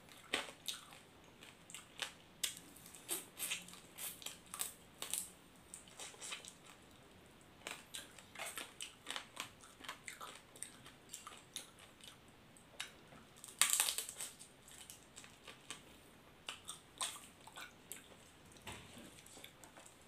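Close-up eating sounds: a grilled prawn's head and shell being cracked by hand and chewed, in irregular crunches and crackles, with one louder crunch about two-thirds of the way through.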